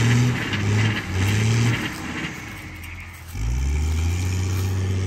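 Mechanical walnut tree shaker's engine working, surging in a regular rhythm about every 0.7 s with a hiss rising and falling in step, as it shakes a tree. A little past halfway it dips briefly, then comes back as a steady engine note that rises in pitch.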